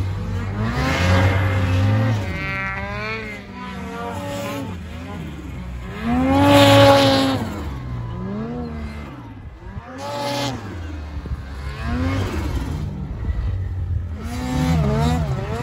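Ski-Doo 850 Turbo snowmobile's two-stroke turbocharged twin, on its stock muffler, revving up and down again and again as it is ridden hard. The loudest rev comes about six seconds in.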